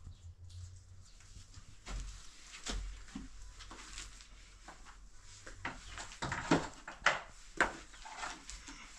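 A long-handled wooden scraper dragged through loose earth and stones on a concrete floor, scraping and knocking stroke after stroke, with sharper, louder knocks in the second half.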